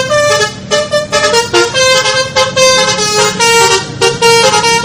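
A multi-tone vehicle horn playing a quick tune of short changing notes, like an Indonesian bus 'telolet' horn.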